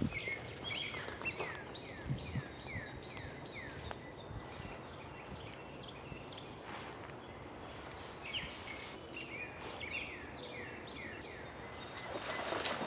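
A songbird singing two runs of quick down-slurred whistled notes, about three notes a second, the second run coming about six seconds after the first. A brief rustle near the end.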